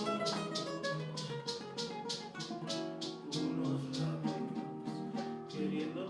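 Music from a strummed guitar, in a steady rhythm of about four strums a second over held lower notes.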